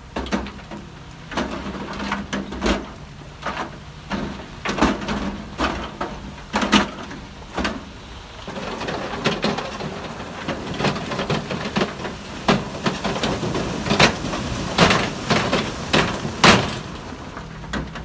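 Heavy earth-moving machinery at work: a diesel engine running with many irregular sharp clanks and knocks, thickest in the second half.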